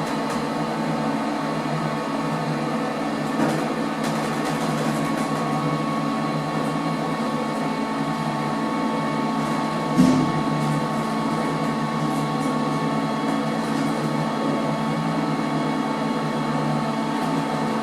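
Passenger lift travelling down between floors: a steady hum from the lift drive, made of several constant tones, with a small click about three and a half seconds in and a low knock about ten seconds in.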